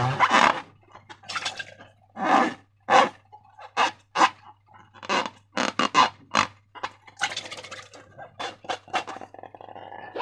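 Slime being squeezed and worked by hand: a run of short, irregular wet squelches and pops, with a longer squishy stretch about three-quarters of the way through.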